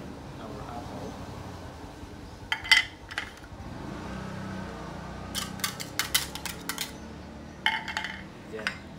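Light clinks and taps of a wire whisk against a mixing bowl and small dishes being handled while kimchi seasoning is mixed: a few taps about two and a half seconds in, a quick run of clicks in the middle, and another short group near the end.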